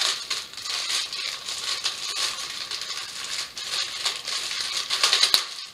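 Plastic packing wrap crinkling and rustling as it is handled, going on for several seconds with a sharp click near the end.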